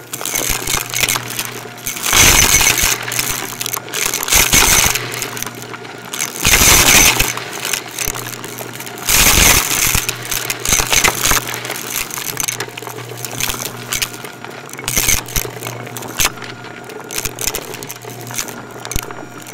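Shark Navigator upright vacuum running and sucking up crunchy debris: a steady motor hum under a constant stream of clicks and rattles. It breaks into several louder bursts of crunch lasting about a second each.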